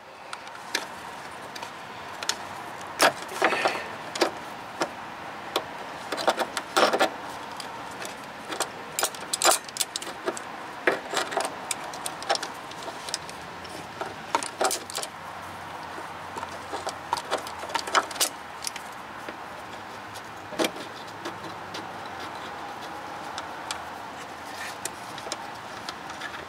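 Hand tools and steel brake-line fittings clinking and clicking as they are handled under a car, a string of irregular sharp metallic clicks over a steady background noise.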